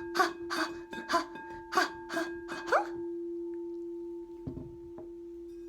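A singing bowl holding one steady ringing tone, under rhythmic strokes about three a second from the closing song; the strokes stop about halfway through and the bowl rings on alone, slowly fading, with two faint knocks near the end.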